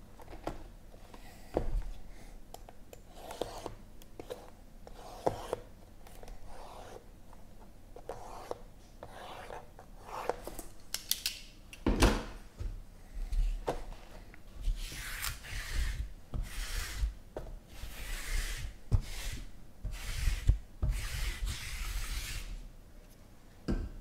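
Card-box packaging being handled off camera: scattered knocks with a sharp knock about halfway, then a run of repeated rubbing, scraping strokes in the second half.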